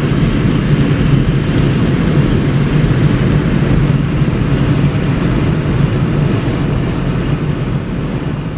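Car audio subwoofers playing a loud, low bass that overloads the microphone, heard as a steady distorted low noise; it fades out near the end.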